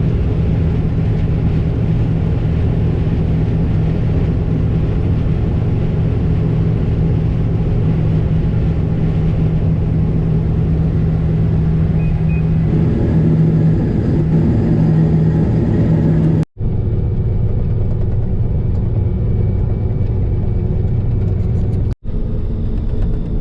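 A vehicle engine running steadily with a deep, even hum. The tone wavers about two-thirds of the way through, and the sound breaks off abruptly twice near the end.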